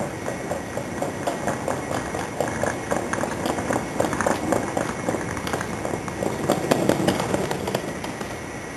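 Taiwan High Speed Rail train moving through the station, its wheels and cars clattering on the track in a quick, uneven run of clicks, louder about two-thirds of the way in.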